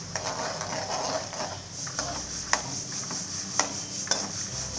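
Peanuts frying in hot oil in a metal kadhai with a steady sizzle, while a perforated metal slotted spoon stirs them and knocks against the pan a few times.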